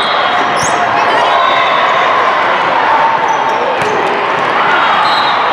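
Indoor volleyball rally amid steady crowd noise from a busy multi-court hall: sneakers squeaking on the sport court, and a sharp slap of the ball being hit at the net about four seconds in.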